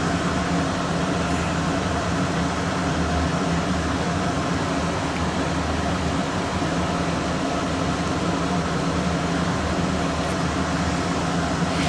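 Steady hum and whoosh of a running fan, even and unchanging throughout.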